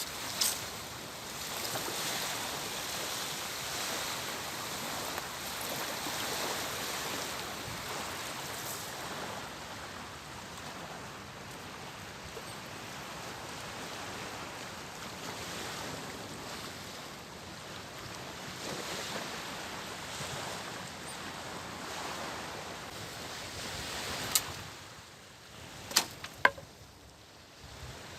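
Steady rushing noise, a little louder in the first half, with a few sharp knocks near the end.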